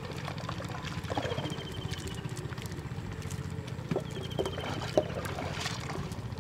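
Small fish being picked out of a wet nylon cast net on mud: scattered light taps, slaps and rustles, one sharper click about five seconds in. Under it runs a steady low engine hum.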